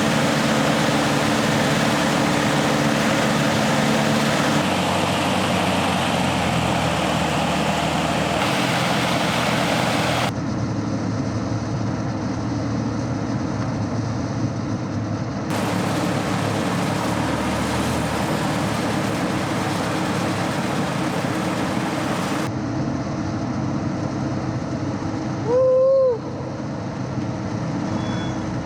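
Cabin noise of a Cessna 172S in flight: the four-cylinder Lycoming engine and propeller running steadily with a constant rushing drone. The sound shifts abruptly several times, and near the end a short loud tone sounds once.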